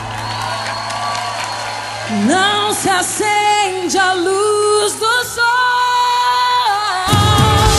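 Live gospel-pop band music: a soft sustained backing, then a high sung melody sliding up into long held notes from about two seconds in. Drums and bass come in strongly near the end, lifting into a fuller rock-style band sound.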